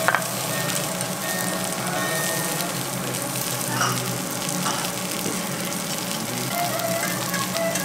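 Lamb chops sizzling steadily on a hot ridged Hokkaido-style (Genghis Khan) grill plate. There is a sharp click of metal tongs against the meat and plate at the start.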